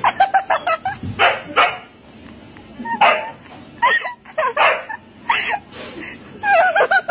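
Siberian husky yipping and whining in a long string of short calls whose pitch wavers up and down.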